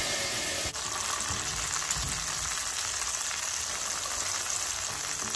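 Freshly boiled, wet sweet potato gnocchi sizzling steadily in a pan of hot browned butter with sage.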